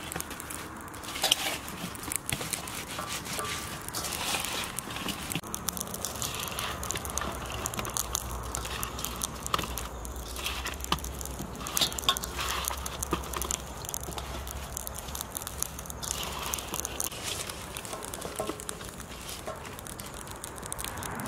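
Hands rubbing and turning slices of raw young jackfruit in a stainless steel bowl: an irregular run of soft crackling, crinkling and scraping as the fibrous pieces squeeze against each other and the bowl.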